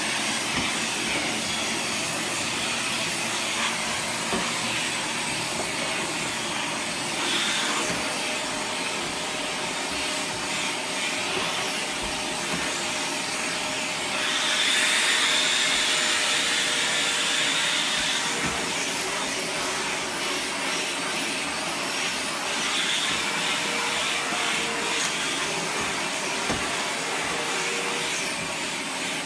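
Dyson DC77 Animal upright vacuum running steadily through its hose and wand, with the tangle-free turbine tool working over carpeted stair treads. The air rush grows louder and higher twice, for about four seconds halfway through and for about five seconds near the end.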